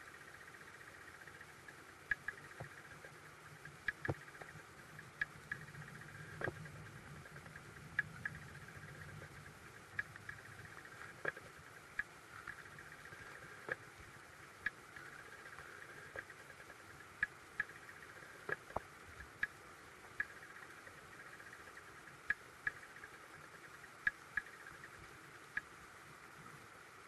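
Stream water heard from inside a submerged camera's housing: a faint, muffled, steady wash with irregular sharp ticks and clicks, about one a second.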